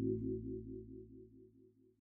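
Closing theme music fading out: a low, droning chord with a soft pulse about four times a second, dying away to silence.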